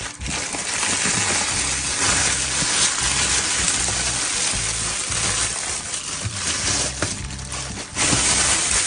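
Plastic bubble-wrap packaging crinkling and crackling loudly as it is handled and pulled aside, swelling again near the end, over background music.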